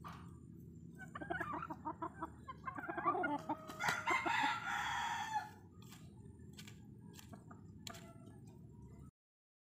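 Chickens calling: clucking from about a second in runs into a single rooster crow that ends about five and a half seconds in, over a steady low rumble. The sound cuts off abruptly near the end.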